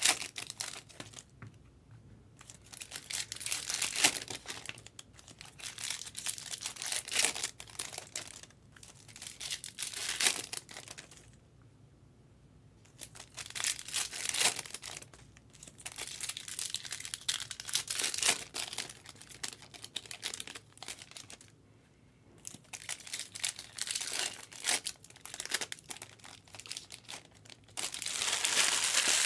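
Foil wrappers of Topps Cosmic Chrome baseball card packs being torn open and crinkled by hand, in irregular bursts of rustling with short pauses between, the longest about a third and three quarters of the way in.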